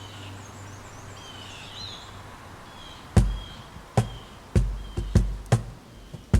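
Birds chirping over outdoor background noise, then from about three seconds in a series of loud, deep kick-drum beats at an uneven tempo as the next worship song starts.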